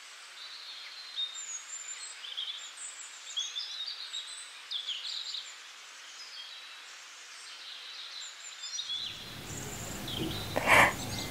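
Faint, scattered chirps and short twittering calls of small birds over a soft hiss. About nine seconds in, a low background noise comes in, followed by a brief voice-like sound near the end.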